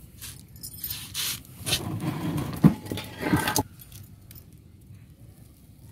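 Rustling and scraping from hands at work over a pot of soil while sowing seeds, with a sharp click about two and a half seconds in; the handling noise stops after about three and a half seconds.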